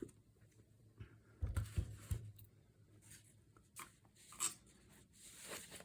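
Quiet handling of paper and a notebook cover: a few soft thumps about a second and a half in, then scattered short rustles and taps.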